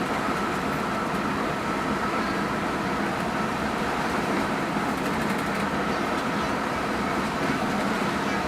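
Steady engine and road noise inside a moving Hino RN285 coach, with a faint steady whine running over it.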